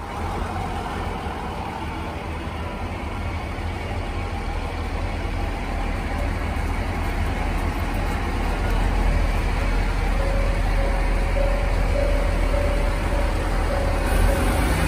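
KiHa 48 diesel railcar engines idling with a steady low drone that grows gradually louder, and a faint steady tone joining about ten seconds in.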